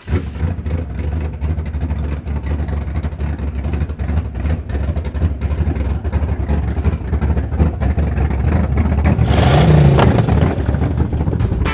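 Car engines running with a steady low rumble, swelling into a louder burst of engine noise about nine to ten seconds in, like a car revving or driving off close by.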